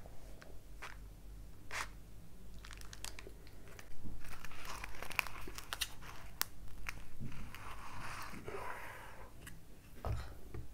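Crackly tearing of a soft sub roll and its fillings being pulled apart by hand, with scattered small clicks. About four seconds in, a paper sandwich sleeve starts crinkling and rustling as the sub is slid into it, the louder part lasting about five seconds.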